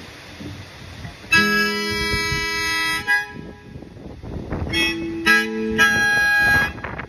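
Harmonica playing long held chords over acoustic guitar, coming in about a second in after a little wind hiss, with a short break in the middle before the next chords.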